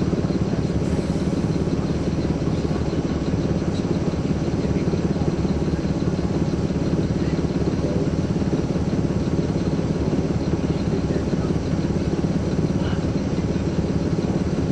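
Caterpillar C13 ACERT diesel engine of a NABI 416.15 transit bus running steadily, heard from inside the bus. The level holds even, with no revving up or down.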